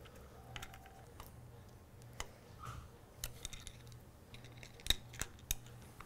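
Scattered faint clicks and ticks of a small screwdriver and hands working a compact industrial limit switch: a wire being fastened in its screw terminals and the switch cover being screwed back on. The sharpest clicks come close together about five seconds in.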